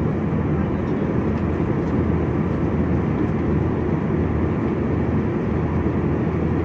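Loud, steady roar of engines and rushing air inside an Airbus A320's cabin.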